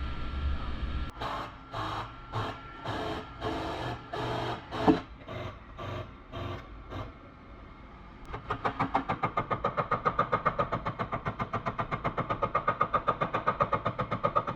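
Bodywork on a car's dented quarter panel while it is pulled out: irregular short bursts of metal work, then from about eight seconds in a rapid, even tapping at about eight strokes a second as the high crowns are knocked down.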